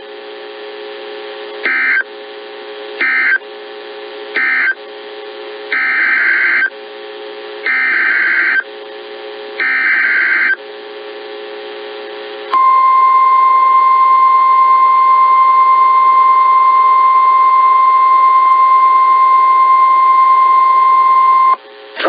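NOAA Weather Radio Emergency Alert System tones: six screeching SAME digital data bursts, three short ones (typical of the end-of-message code) and then three longer ones (the header of a new alert). These are followed by the steady 1050 Hz warning alarm tone, held for about nine seconds, which announces a new warning.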